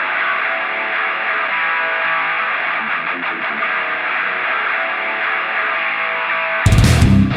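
Intro rock music: a distorted electric guitar plays with a thin, filtered sound, then the full, much louder band kicks in with heavy hits near the end.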